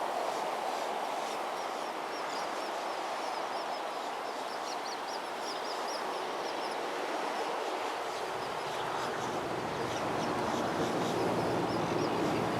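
Steady rush of storm wind and surf, with small birds chirping over it again and again. About two-thirds of the way in, a low engine drone joins in.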